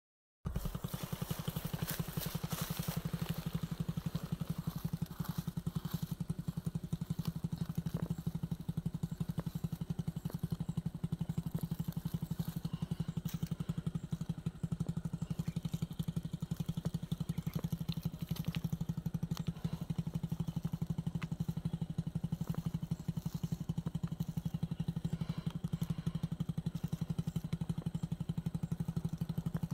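A small engine running steadily, a fast, even low pulsing that does not change.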